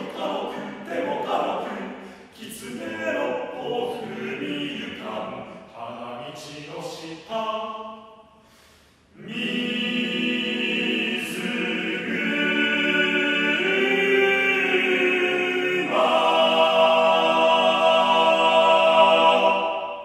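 Male a cappella vocal ensemble of seven singers: short sung phrases, a brief pause, then a long held chord of several voices that shifts twice before it is cut off, leaving a short hall echo.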